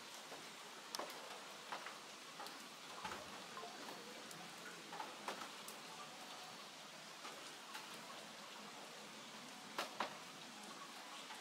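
Sparse, sharp clicks and ticks at irregular intervals over a steady background hiss, with a close pair of louder clicks about ten seconds in.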